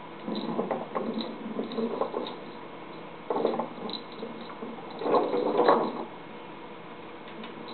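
Small plastic treat-dispensing ball rolled and batted by a cat across a hardwood floor, the dry food inside rattling, in three bouts of rolling and clatter.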